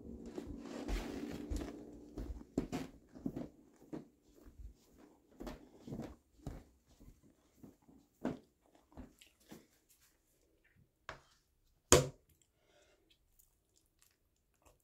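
Handling noise: scattered taps, knocks and rustles of things being handled and the phone being moved. A low hum runs through the first two seconds, and one sharp knock comes about twelve seconds in.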